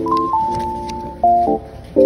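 Background music: sustained chords under a slow melody, its notes changing every half second or so, with a brief dip in the sound a little before the end.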